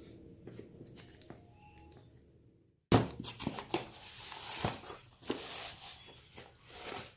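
Parcel packaging being handled and torn open, crinkling and rustling with sharp clicks. It is faint handling at first, then louder, busier tearing and crinkling after a short break about three seconds in.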